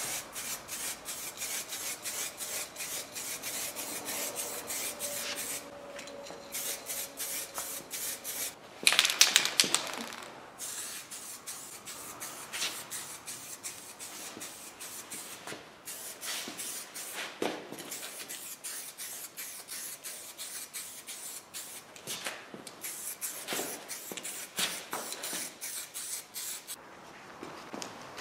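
Aerosol can of black spray paint hissing in many short bursts, with one longer, louder spray about nine seconds in.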